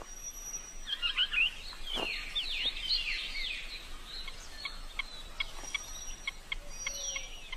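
Wild birds calling: a mix of chirps and quick falling whistles, then a run of short repeated notes at about four a second, with a thin high whistle held in the background at times.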